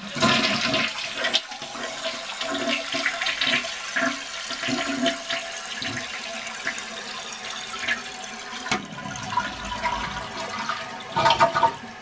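1984 Crane Radcliffe toilet flushing with its tank lid off: water rushing out of the tank and down through the bowl, with a short lull late on and a louder surge near the end.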